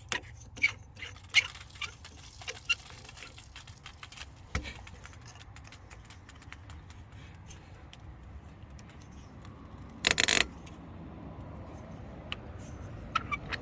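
Metal hand tools clinking and ticking against a metal outdoor faucet and pipe, several sharp clinks close together in the first few seconds, then lighter scattered ticks. About ten seconds in there is a short, loud rush of noise lasting about half a second.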